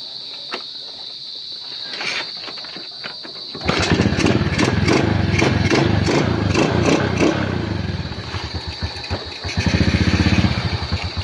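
Small motorcycle engine being started after a carburetor overhaul: it catches about a third of the way in and runs, the firing pulses growing louder and quicker for a moment near the end. The idle is set a little low.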